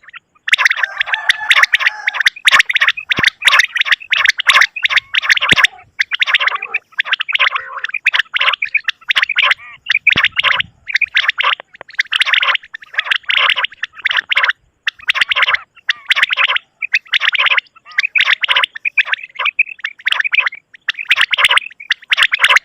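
Quail calling: rapid, stuttering calls repeated in runs of about one to two seconds, broken by short pauses, over and over.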